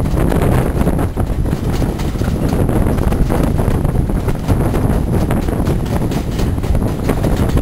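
Wind buffeting the microphone held out of a moving Mk1 carriage window, over the wheels knocking and clattering rapidly on the rails at speed.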